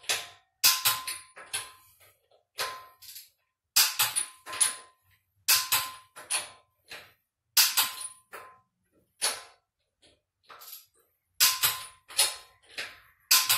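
Half-inch click-type torque wrench clicking as wheel lug nuts are given their final torque. There is a string of sharp metallic clicks, one every second or so, some with a brief ring. Each click signals that the wrench's set torque of 85 foot-pounds has been reached.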